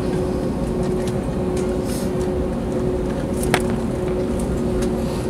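Cabin of an Airbus A321neo taxiing: a steady low rumble with a steady hum, and one sharp click about three and a half seconds in.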